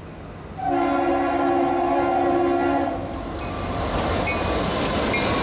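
A diesel locomotive's multi-note air horn sounds one long blast of about two seconds, starting about a second in. The rumble and hiss of the train rolling past then builds up.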